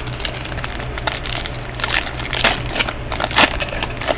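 Trading cards being handled and flipped through: scattered soft clicks and rustles of card stock sliding against card stock, with a couple of sharper snaps.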